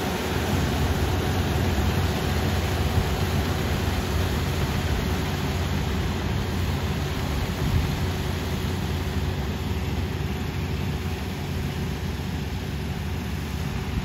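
Kubota ER470 combine harvester running as it cuts standing rice: a steady drone of its diesel engine and machinery, fading slightly as it moves away.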